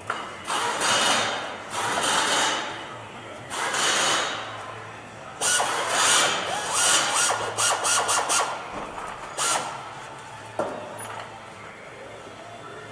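Hand tool worked in strokes over body filler on a car panel: a series of scraping strokes, about half a second to a second each, with a quick run of short strokes in the middle and a single sharp click near the end.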